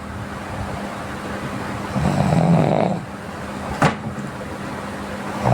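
A sleeping person snoring: one snore about two seconds in, over a steady background hiss, with a single sharp click a little later.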